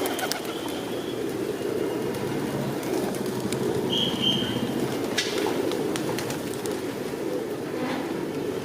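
Many pigeons cooing together in a continuous, overlapping murmur, with a brief high chirp from a small bird about four seconds in.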